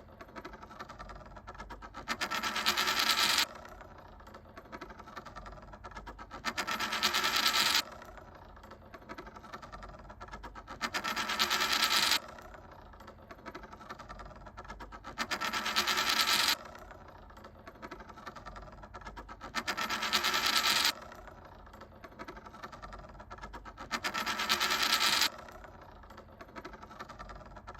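Japanese 10-yen coin spinning and rattling on a hard surface. About every four and a half seconds a louder metallic rattle builds for a second or so and cuts off sharply, six times over.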